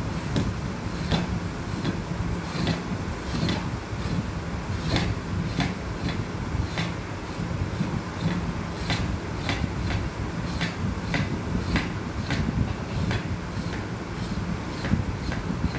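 A kitchen knife scraping the skin off a snake gourd: short rasping strokes, about two a second in an uneven rhythm, over a steady low hum.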